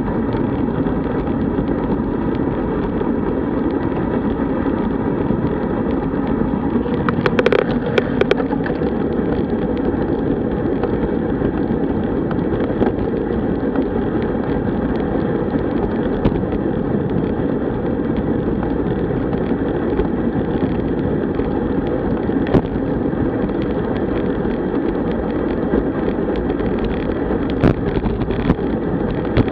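Steady rush of wind and tyre noise from a road bike riding at around 37 km/h, picked up by an on-board camera microphone. A few sharp clicks come about seven to eight seconds in and again near the end.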